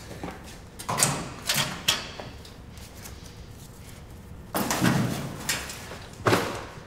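Clothes rustling as a shirt is pulled off and handled, with knocks and rattles from a metal locker at its open door. The sounds come in a few short bursts, a cluster about a second in and another about halfway through.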